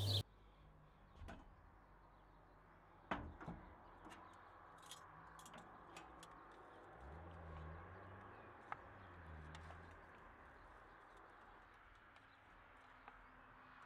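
Faint wooden spoon stirring chopped vegetables in a pan inside a steel camp oven, with light scrapes and clicks and two sharper knocks about three seconds in.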